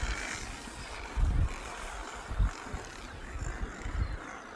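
Outdoor clifftop ambience: a faint steady din of seabirds calling from the colony, with short gusts of wind bumping on the microphone about a second in and again near the middle.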